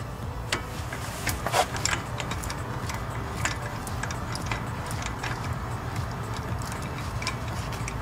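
Hand ratchet clicking in short, irregular strokes as it spins the already-loosened front axle nut off the hub, over a steady low hum.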